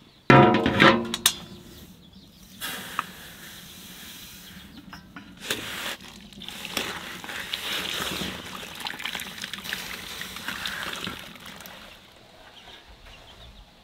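A large aluminium basin clanks and rings as it is set down over the fire on a wood-fired stove top. After that comes a rustling hiss, with small crackles, of granulated sugar being poured.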